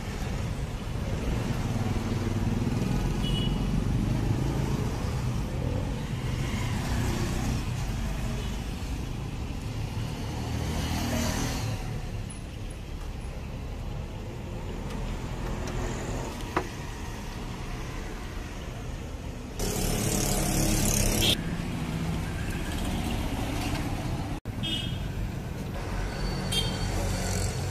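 Street traffic noise: a steady low rumble of passing vehicles, with a loud hiss lasting about two seconds some twenty seconds in. Near the end, oil sizzling as battered chicken goes into a kadai.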